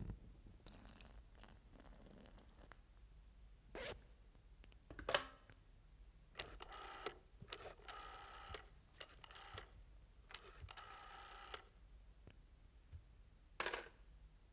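Rotary telephone being dialed: three whirring dial returns with rapid clicks, each about a second long, in the second half, along with a few knocks as the phone is handled, the loudest about five seconds in.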